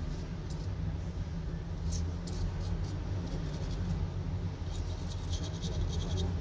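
Small brush scrubbing a water-damaged phone circuit board: light, rapid scratchy strokes, a few about two seconds in and a quick run of them near the end, over a steady low hum.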